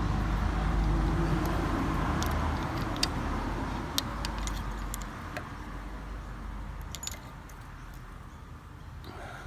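Small metallic clicks and clinks from handling the disc brake caliper parts and tools, over a low vehicle rumble that fades away over the first half.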